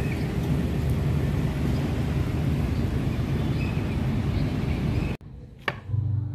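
Large coach bus's diesel engine running as the bus moves slowly, a steady low hum. The sound cuts off abruptly about five seconds in, followed by a single sharp click.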